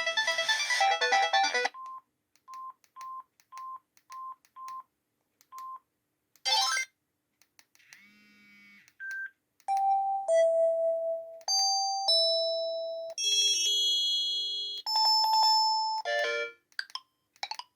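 Samsung SGH-C140 mobile phone playing its built-in ringtones and alert tones through its small speaker: a polyphonic tune ends, followed by a row of short beeps at one pitch, a brief rising sweep, and several short electronic chime and beep jingles.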